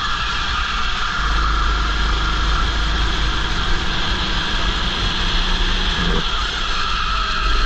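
Racing kart engine running hard, heard from a helmet-mounted camera. Its note drops off and picks up again about six seconds in.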